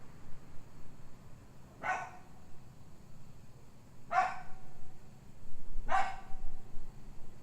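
Dog barking three times, about two seconds apart, each bark dropping off in a short falling tail. A low wind rumble on the microphone runs underneath.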